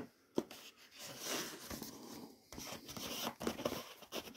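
Paper packaging being handled, rustling and crinkling, with a few sharp clicks and taps.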